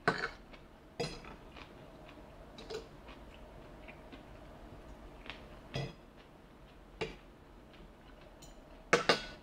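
Metal fork tapping and scraping on a ceramic dinner plate while picking up food: a handful of separate sharp clinks spaced a second or more apart, with two in quick succession near the end.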